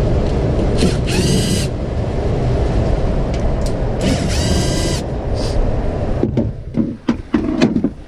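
Suburban RV furnace blower running with a steady rush, while a power screwdriver whines briefly twice, about a second in and again around four seconds, backing out the cover plate's screws. About six seconds in the blower noise drops away, roughly thirty seconds after the fan came on: the furnace shutting itself off, the fault being diagnosed. A few knocks of the sheet-metal cover being handled follow.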